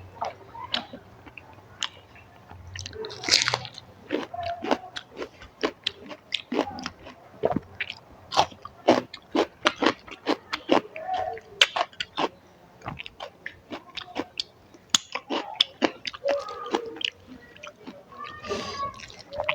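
Close-miked chewing and mouth sounds of a person eating hilsa fish curry with eggplant and rice, with many quick, irregular wet smacks.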